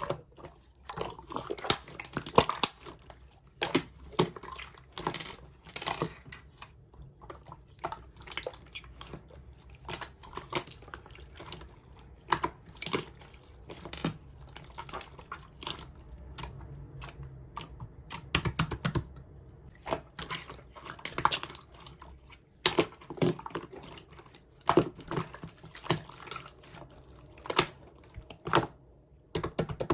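Clear slime being squished and poked by hand, giving irregular wet, sticky clicks and pops several times a second.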